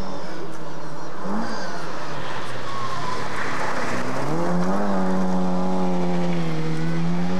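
Rally car engine revving hard as the car comes past, its note rising about halfway through and then held steady at high revs as it pulls away.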